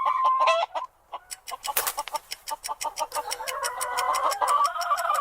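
Chickens clucking: a held call at the start, then from about a second and a half in a dense run of short, quick clucks.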